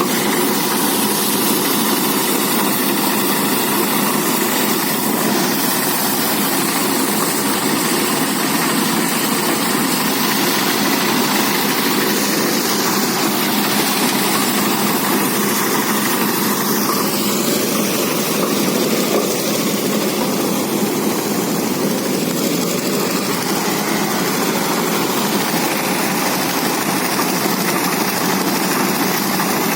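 Rice threshing machine running steadily: its engine and drum give a continuous mechanical hum with a rushing noise over it.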